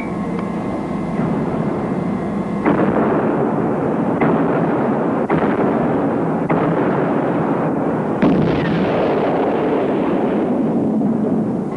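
Heavy naval guns firing and shells bursting over a continuous rumble, with several sharp blasts a second or two apart.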